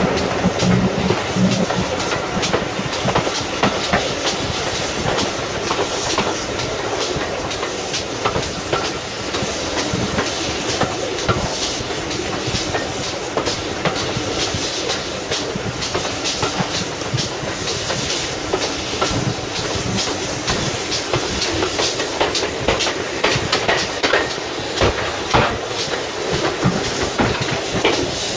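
Train running along the line, heard from a carriage window: wheels clattering over the rail joints with air rushing past.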